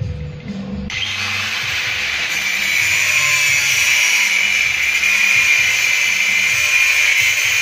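Background music, then about a second in an electric angle grinder with a thin abrasive cutoff disc starts cutting into steel, a loud, steady high-pitched grinding noise that holds to the end.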